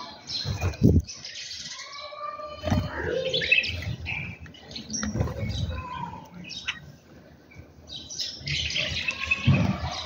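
Small birds chirping and calling, a run of short chirps and rising and falling whistled notes, with a few low thuds, the loudest about a second in.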